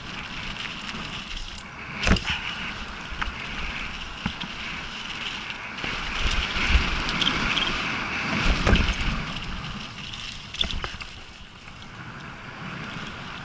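Mountain bike descending a dirt downhill trail: tyres rolling over dirt and stones and the bike's frame and chain rattling over bumps, with wind noise on the microphone. Several sharp knocks from hits on the trail, the loudest about two seconds in and around nine seconds.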